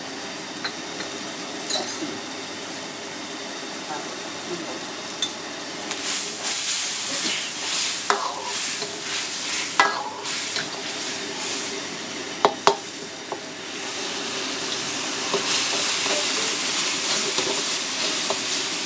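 A metal ladle clicking against ceramic condiment bowls, then a chilli sauce sizzling in a hot wok as the ladle stirs and scrapes it, with a few sharp knocks of ladle on wok. The sizzle grows louder for the last few seconds.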